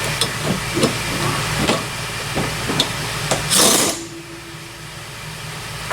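Torch flame hissing steadily against seized suspension hardware, with scattered crackles and knocks, then a short loud hiss about three and a half seconds in, after which the noise drops to a quieter hum.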